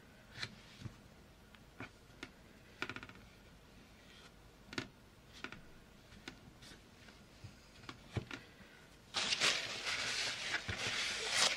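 Paper and a ring binder being handled: scattered light taps and clicks, then from about nine seconds in a louder, continuous rustling of paper being rubbed and pressed down.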